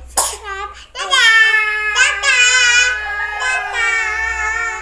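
A young child's voice calling out in a loud sing-song: a short yelp, then two long, steady, drawn-out notes, the second held over two seconds and ending near the end.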